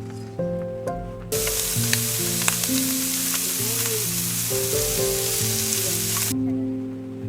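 Food sizzling in a frying pan, a loud steady hiss that starts a little over a second in and cuts off suddenly about five seconds later, over background music.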